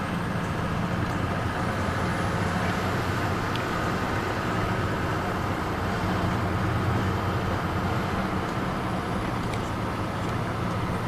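A car's engine and tyre noise heard from inside the cabin, running steadily as the car drives along.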